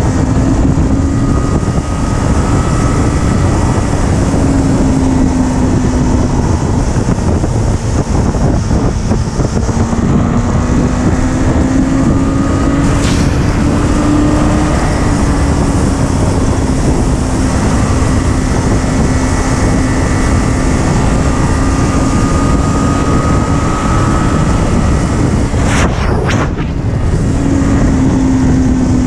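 Sportbike engine running at a steady cruise, its note drifting slightly up and down, under heavy wind rush on the microphone. Two brief clicks, about halfway through and near the end.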